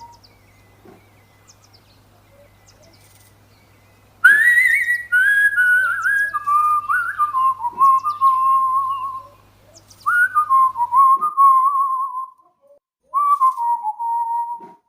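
Cockatiel whistling three phrases, each starting high and stepping down in warbling notes.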